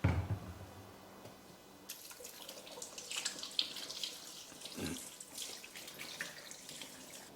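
Tap water running into a sink while hands are washed under it, with irregular splashing. A knock at the very start.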